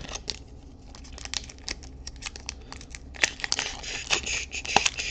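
Foil Pokémon TCG booster pack wrapper crinkling as it is handled and torn open. The crackling is light at first and gets much denser and louder about three seconds in, as the pack is opened.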